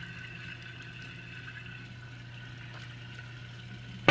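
Yeast slurry running out of a hose into a stainless steel bucket: the sound of liquid filling the bucket over a steady low hum.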